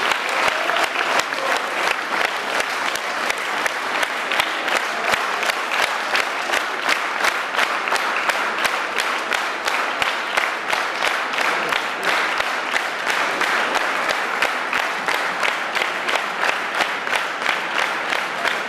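Audience clapping in unison, a steady rhythmic beat of about two to three claps a second.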